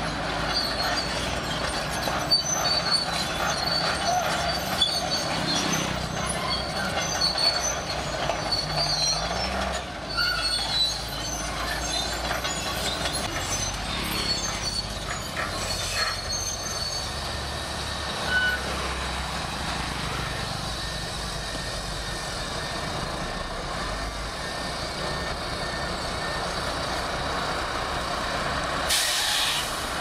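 Shantui SD22 crawler bulldozer working: its diesel engine runs steadily under the squeal and clank of its steel tracks as it pushes dirt. A short hiss comes near the end.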